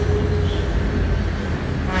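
Steady low rumble of road traffic, with a short high pitched sound at the very end.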